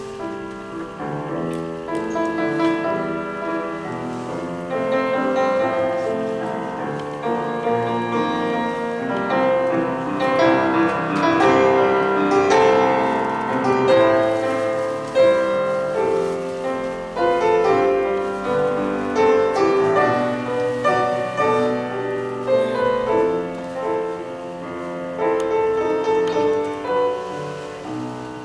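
Solo grand piano played live: a flowing stream of notes, fuller and louder around the middle of the passage.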